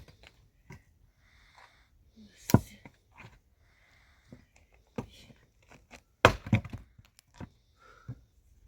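Wood being knocked and struck: two loud, sharp wooden knocks, one a couple of seconds in and one about six seconds in, among lighter knocks, clicks and rustling.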